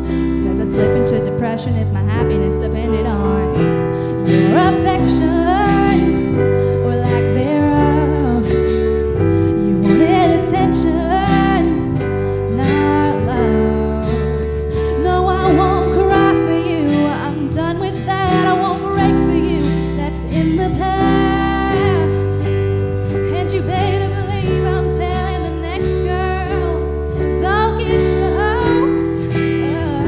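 A song: a woman singing over acoustic guitar, with steady held chords under a wavering vocal melody.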